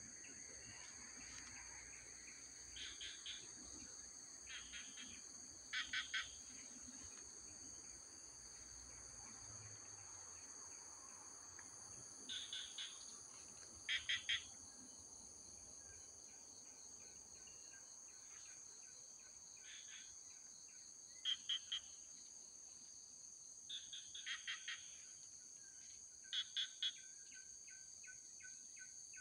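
A steady high-pitched drone of insects, with short calls of three or four quick notes repeating every few seconds, likely a bird; these calls are the loudest sounds.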